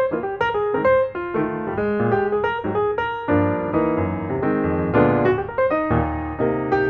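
Background piano music, a flowing run of single notes and chords.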